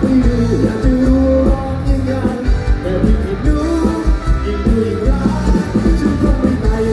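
Male singer performing live with a band: sung vocals over drums and bass, with a steady beat.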